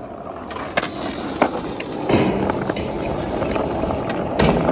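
Skateboard wheels rolling across ramps, with a few sharp clacks of the board, the loudest near the end.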